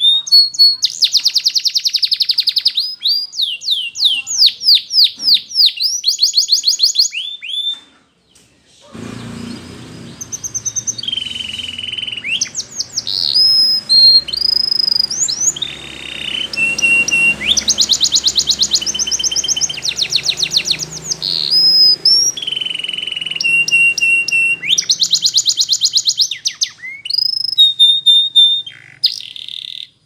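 Canary singing: fast trills of rapidly repeated, downward-sweeping notes, a short pause about eight seconds in, then held whistles alternating with rapid rolls and trills, over a low background hum.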